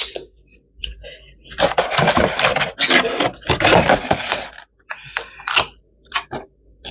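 Thin clear plastic takeaway container crinkling and crackling as it is picked up and handled, with its lid clicking. A dense stretch of crackling starts about a second and a half in and lasts about three seconds, followed by a few separate sharp clicks.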